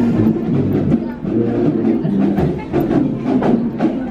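School marching band playing in a hallway: drums with sharp stick clicks over sustained band notes.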